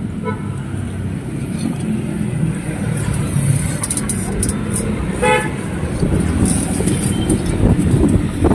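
Steady rumble of passing road traffic, with one short vehicle-horn toot a little past five seconds in.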